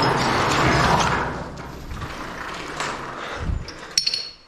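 Handling noise from an electric dirt bike being picked up off a gravelly dirt floor: a loud scraping rustle for the first second or so, then a low thud and a sharp metallic clank near the end.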